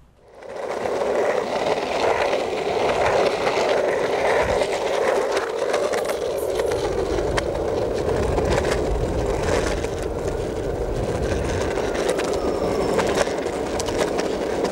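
Skateboard wheels rolling steadily over rough pavement, a continuous rumble with scattered clicks and knocks from cracks and grit.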